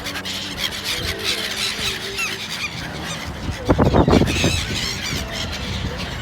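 A flock of gulls calling, many short high-pitched squealing cries overlapping, with a loud rushing burst about four seconds in.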